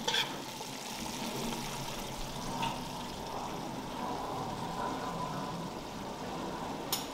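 Minced lamb sauce simmering in a pot on an induction hob: a steady low bubbling hiss, with a light clink of a spoon about two and a half seconds in.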